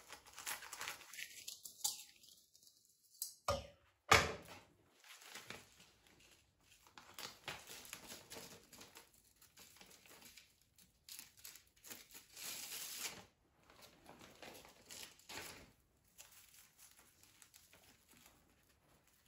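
Plastic nori packet being cut open with scissors and handled, crinkling and rustling in irregular bursts, with a sharp click about four seconds in. Dry nori sheets rustle as they are drawn out of the packet.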